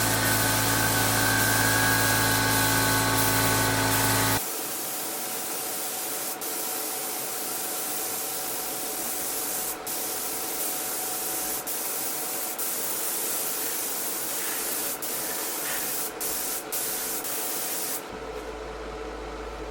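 Paint being sprayed onto an airsoft pistol: a steady hiss with several brief breaks. For the first four seconds a loud, steady hum sounds over it and then cuts off abruptly.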